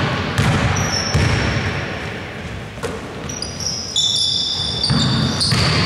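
Basketball bouncing on a hardwood gym floor, each knock echoing in the hall, with high-pitched squeaks over the second half.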